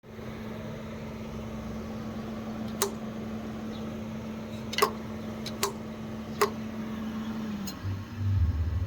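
A steady low hum with five sharp clicks spaced irregularly over several seconds; the hum stops with the last click near the end, and a low rumble comes in.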